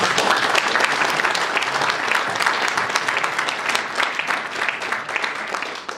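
Audience applauding, a dense run of many hands clapping that begins to taper off near the end.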